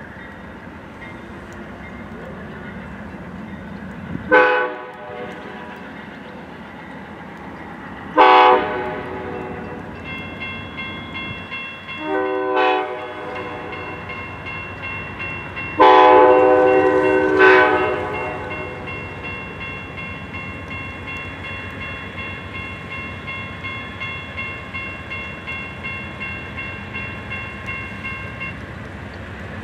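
Amtrak diesel locomotive's multi-chime air horn sounding the grade-crossing warning: four blasts about four seconds apart, the last the longest. From about a third of the way in, the crossing's warning bell rings steadily under the horn and stops near the end.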